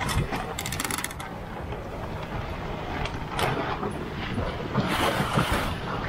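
Water rushing and splashing along the hull of a small heeled racing sailboat, with wind on the microphone and louder surges of spray twice. About half a second in, a quick run of rapid ratchet clicks from the boat's deck gear as a sheet is pulled in.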